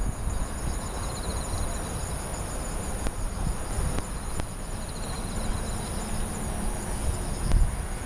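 Insects singing: a steady high-pitched trill, with pulsed chirping trills that come and go over it, above a low rumble of background noise.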